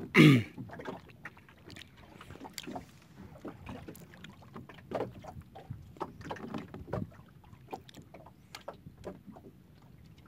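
Small boat at anchor on choppy water: water slapping against the hull with scattered small knocks and clicks. Right at the start there is one brief, loud sound that falls in pitch.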